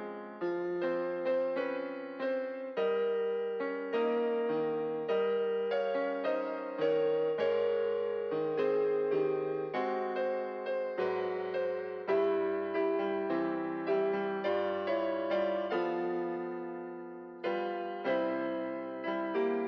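Background piano music: slow chords, each struck and left to fade, a new chord every half second to a second.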